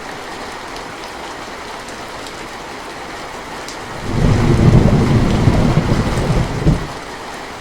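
Steady rain falling, with a roll of thunder rumbling in about halfway through and lasting around three seconds before dying away.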